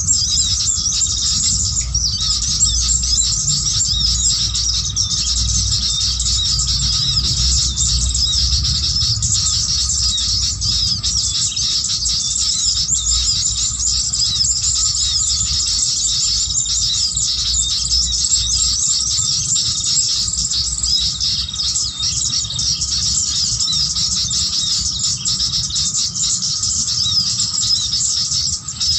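Dense, continuous high-pitched bird chattering and twittering that does not let up, over a low rumble.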